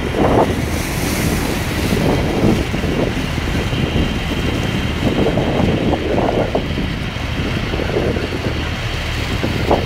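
Boat diesel engine running steadily with churning wake water, under heavy wind buffeting on the microphone.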